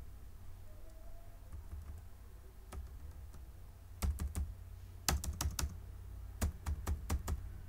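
Computer keyboard keys being pressed in short irregular runs, a few scattered keystrokes at first and busier typing from about four seconds in.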